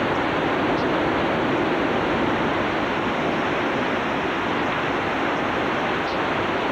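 Hurricane Katrina's eyewall storm: a steady, loud rush of wind and rain, with rushing floodwater, that does not let up.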